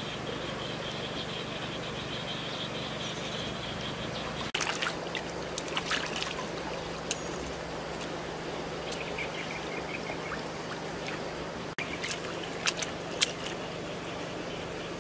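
Shallow river water trickling and splashing as hands scoop and wash in it, with irregular splashes after about four seconds and a couple of sharp clicks near the end.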